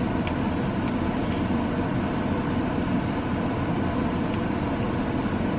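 Steady, even low rumble with a light hiss over it.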